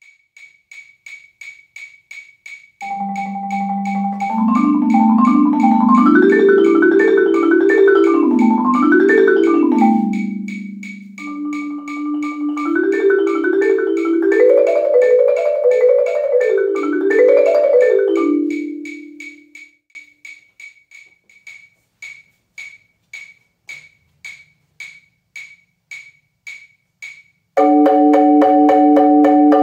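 Four-mallet marimba (a Marimba One) played in rolled patterns that climb and fall in pitch, two phrases with a pause between, then a held rolled chord that starts near the end. A steady click keeps time under the playing.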